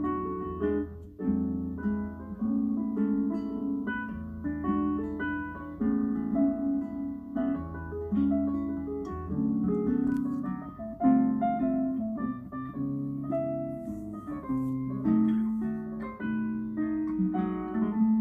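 Background music: a gentle plucked guitar melody.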